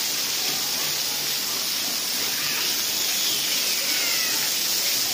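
Water pouring from a splash-pad umbrella fountain and spraying onto the rubber play surface: a steady, even hiss of falling water.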